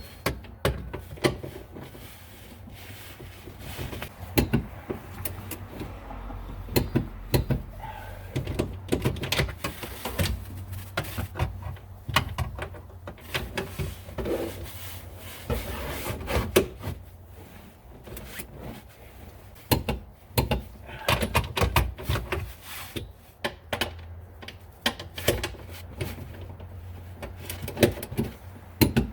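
Hand tools working on the car's rear suspension: many irregular metallic clicks, clinks and knocks, as of a wrench and ratchet on the strut's nuts and bolts.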